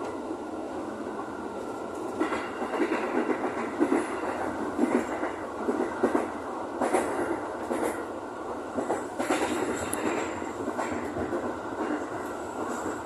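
JR 205 series electric commuter train running along the track, with steady running noise and irregular short clacks as the wheels pass over rail joints.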